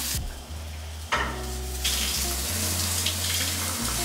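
Cooking sounds from a saucepan on the stove: a steady sizzling hiss with a sharp clink about a second in.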